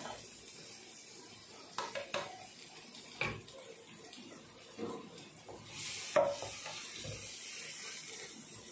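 Scrambled eggs and corn sizzling faintly in a frying pan, with scattered clinks and knocks of a tin and utensils; the sharpest knock comes about six seconds in.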